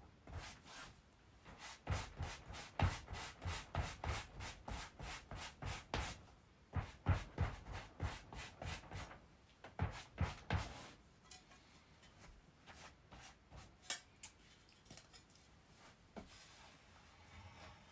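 Quick back-and-forth rubbing strokes of a flat hand tool over shoji rice paper, about three a second, stopping a little over halfway through, followed by a few faint scattered handling sounds and a single click.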